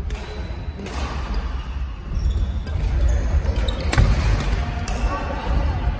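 Badminton rally: rackets striking the shuttlecock in several sharp hits roughly a second apart, the loudest about four seconds in, with short squeaks of shoes on the wooden court floor and the echo of a large sports hall.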